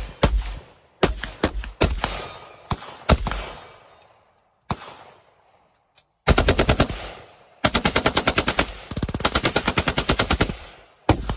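Gunfire outdoors: several separate shots, each with a trailing echo, over the first four seconds, then an AK-pattern rifle firing fully automatic, a short burst about six seconds in and a long burst of about three seconds at roughly ten rounds a second, with one last shot near the end.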